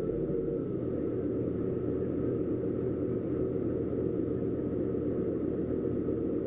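Doosan DX140 excavator's diesel engine running steadily, heard from the operator's cab, with no digging or impacts.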